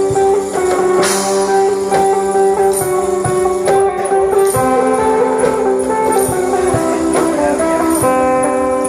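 Sape, the Bornean lute, playing a plucked melody over held drone notes, with new notes struck every fraction of a second.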